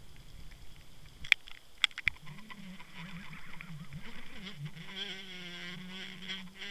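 Sound recorded underwater at depth: a low wavering hum, sharp clicks about a second and two seconds in, and a buzzing whine with faint overtones from about five seconds in.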